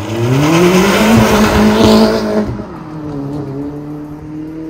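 Škoda Octavia RS's 1.8-litre turbo four-cylinder through a newly made stainless steel exhaust, accelerating hard toward and past: the engine note climbs quickly and is loudest about one to two and a half seconds in, then drops to a lower, quieter note as the car pulls away.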